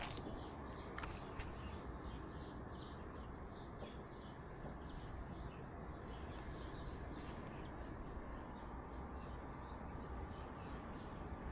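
A small bird chirping: short high chirps, two or three a second, with a pause around the middle. A steady outdoor hiss sits underneath.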